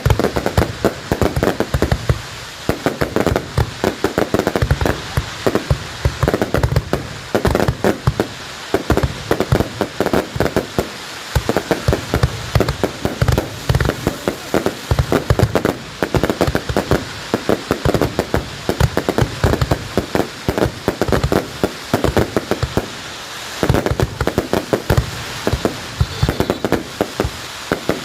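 Fireworks going off in a dense, unbroken run of sharp bangs and crackles, many each second.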